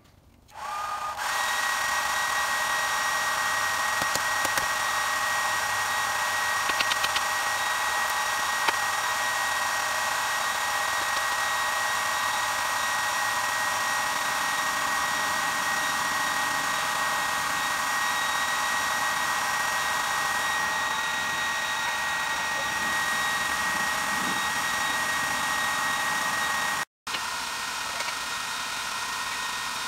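Electric air blower feeding a coal forge fire: it spins up with a short rising whine about half a second in, then runs steadily with a high whine over a rushing noise. It drops out for a moment near the end and carries on a little quieter.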